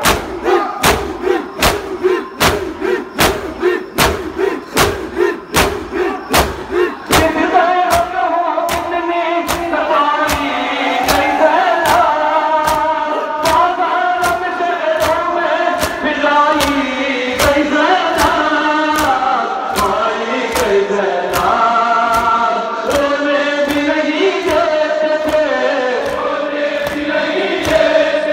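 Matam: a crowd of men beating their chests in unison, about two and a half slaps a second, with chanting voices. From about seven seconds in, a group of male voices sings a Muharram noha in unison over the steady beat.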